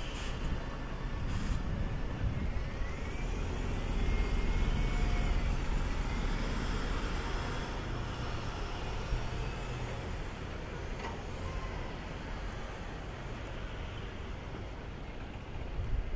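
City street traffic with a red double-decker bus's engine running close by. The low engine noise is loudest about four to six seconds in, then eases to a steadier traffic hum.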